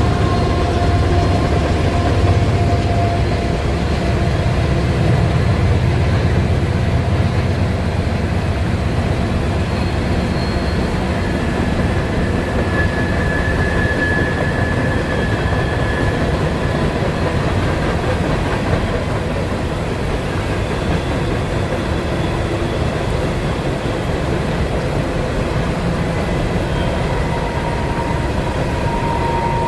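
Train rolling past on the rail line, a steady loud rumble with faint thin ringing tones that come and go.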